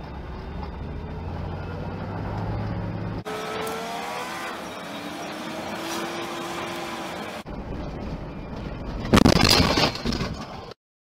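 Vehicle engine running and speeding up on a gravel road, with gliding engine tones in the middle. About nine seconds in comes a loud, sudden rush of noise as dirt and gravel strike the vehicle.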